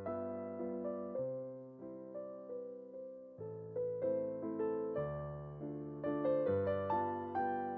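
Gentle piano music: a slow melody of struck, fading notes over held bass notes.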